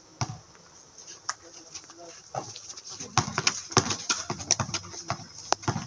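Basketball bouncing on a concrete court amid players' footsteps and sneaker scuffs: a string of sharp, irregular knocks, sparse at first and coming thick and fast from about two seconds in.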